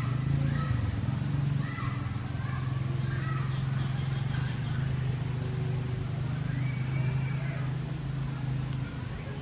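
Steady low engine hum, with short high-pitched chirps scattered over it.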